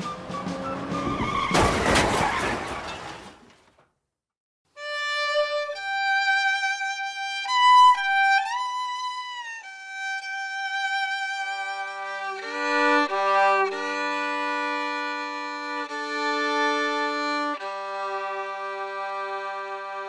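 A loud, noisy burst swells and dies away in the first few seconds. After a moment of silence a solo violin plays a slow, sad melody with sliding notes, and lower sustained string notes join it about halfway through.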